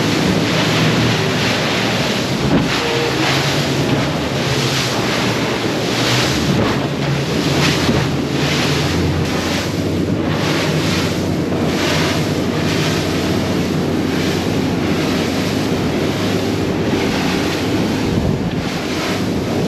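Sea Hunt Gamefish 30 center-console boat running at speed: a steady outboard engine drone under loud wind buffeting the microphone and water rushing past the hull, surging and easing every second or so.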